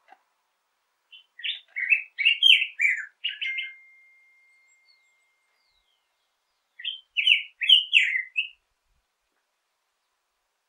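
Black-headed grosbeak singing two rich, warbled phrases of quick up-and-down notes, the first about a second in and a shorter one near the seven-second mark.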